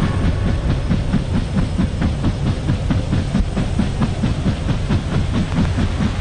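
Rhythmic mechanical chugging, about five beats a second, over a steady hiss.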